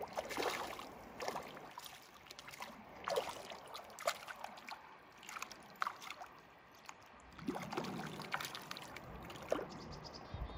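Irregular small splashes and water sloshing from a hooked trout thrashing at the surface in shallow water while being played on a line.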